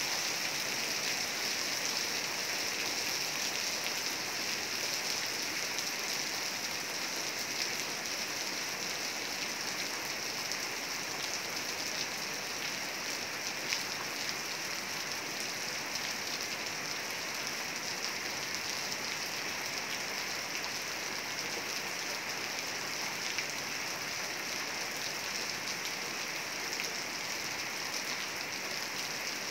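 Heavy rain falling steadily: a dense, even hiss of rain on surfaces, with a few louder drops ticking through it.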